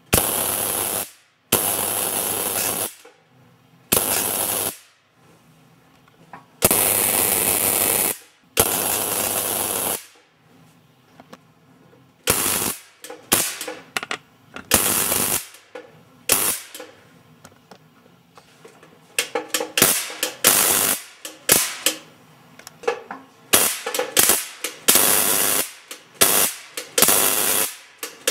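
Tesla coil discharging, its sparks crackling in loud bursts: first a few long bursts of about a second each, then shorter, quicker bursts in rapid succession toward the end.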